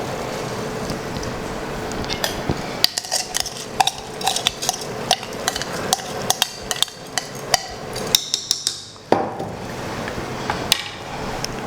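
A metal spoon stirring soaked basmati rice into masala in a metal pressure-cooker pot, with irregular knocks and scrapes against the pot.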